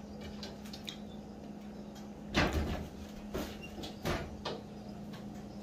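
Clunks and clicks of a kitchen range's oven door being handled and pulled open, the loudest thud about two and a half seconds in and a few lighter knocks after it, over a faint steady hum.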